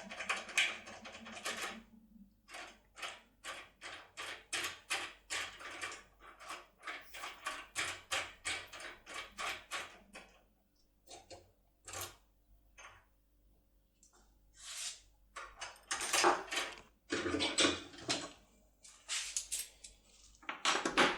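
A Topolino decoder pick working the pins of an ISEO R90 dimple lock cylinder, giving quick small metallic clicks about three or four a second. The clicks thin out for a few seconds, then give way to louder scraping rattles near the end.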